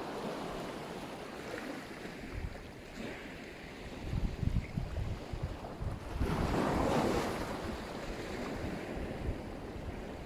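Black Sea surf: waves washing onto the shore, with one louder wave breaking and running up about six seconds in. Wind buffets the microphone in low gusts.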